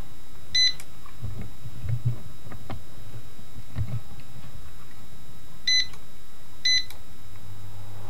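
Split air conditioner's control board beeping as it takes remote-control presses: three short beeps, one about half a second in and two a second apart near the end, with faint handling knocks in between. A low hum comes on shortly before the end.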